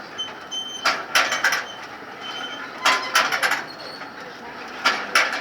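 Jean Tinguely's Heureka kinetic sculpture running: metal parts scratching and squeaking in a repeating cycle, a cluster of harsh scrapes about every two seconds with short high squeaks between them.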